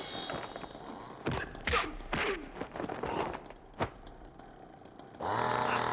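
A run of sharp thumps and knocks, a few of them close together and one more a couple of seconds later, with short swishing slides between them: fight sound effects. Near the end a steady motor drone comes back in.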